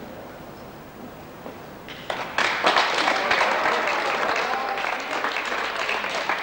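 A group of people clapping, breaking out suddenly about two seconds in and carrying on steadily.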